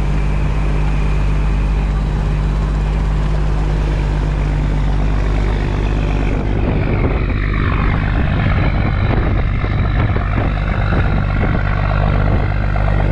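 Fishing boat's engine running with a steady low drone; from about halfway the sound turns rougher and more uneven.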